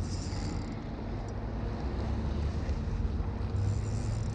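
Wind rumbling on the microphone while a fish is played on a spinning rod and reel, with a faint high whir of the reel briefly at the start and again near the end.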